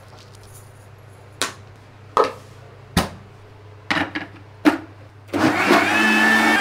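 A handful of sharp hard knocks and clacks, then about five and a half seconds in an electric countertop blender switches on and runs steadily with a high whine, blending a capsicum and chilli sauce.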